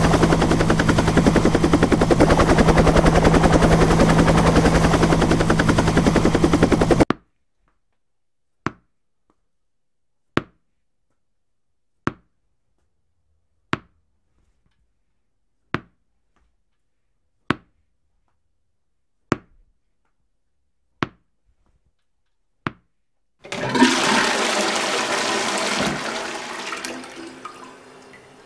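A steady, loud mechanical drone with a low hum that cuts off suddenly about seven seconds in, followed by nine sharp ticks nearly two seconds apart. Near the end a toilet flushes: a loud rush of water that slowly drains away and fades.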